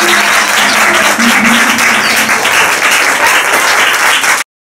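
An audience applauding, with music still playing underneath; both cut off suddenly near the end.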